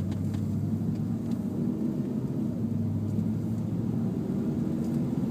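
The 5.0-litre V8 of a 1996 Ford Explorer running steadily under way, a low drone heard from inside the cabin together with road noise.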